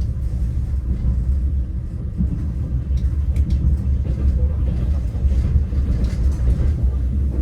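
Steady low rumble of a passenger train carriage running along the track, heard from inside the carriage, with a few faint ticks about three seconds in.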